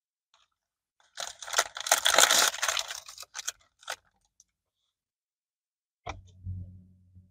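Paper wrapper around a soft pretzel crinkling and rustling as it is handled, a dense crackle lasting about three seconds. Near the end comes a brief low hum.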